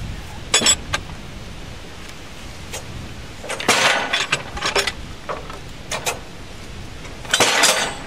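Steel cant hook clinking and scraping as a squared wooden cant is levered over on the steel bed of a portable sawmill. A handful of short clanks and knocks, with a longer run of them around halfway and another near the end.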